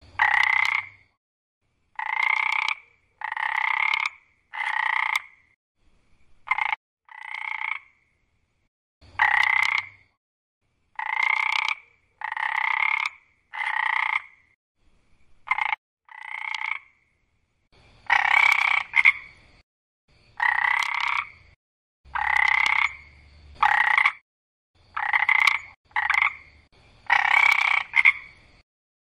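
A frog croaking: about twenty short croaks, each under a second, in a loose series roughly a second apart, with dead silence between them.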